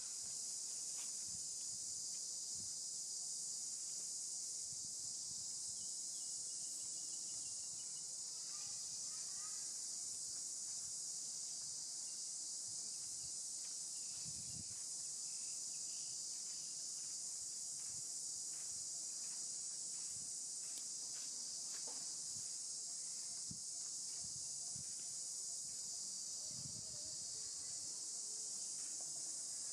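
Steady, high-pitched insect chorus that runs on without a break, with a few faint low thumps now and then.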